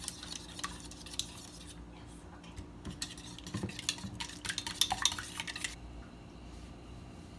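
Kitchen utensils clinking and scraping against a pot or pan during stirring, with a busy run of clinks in the middle that stops about six seconds in.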